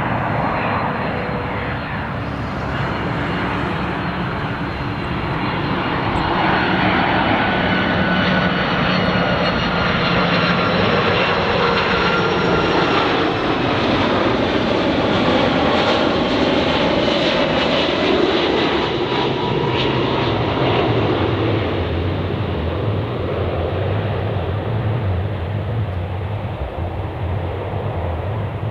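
Airbus A330-300 twin-engine jet passing close on its landing approach: a steady, loud rush of jet engine noise with high whining tones that slowly fall in pitch as it goes by.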